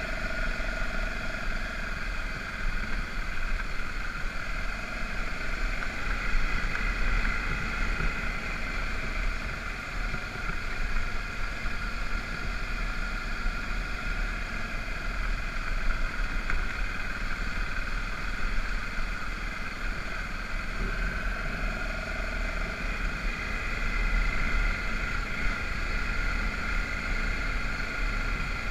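BMW F650GS motorcycle engine running steadily under way on a dirt road, with a strong low rumble beneath the engine note.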